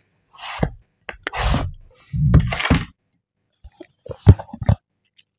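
White cardboard phone box handled close to the microphone: three scraping, rustling sweeps, then a quick run of sharp taps and clicks about four seconds in.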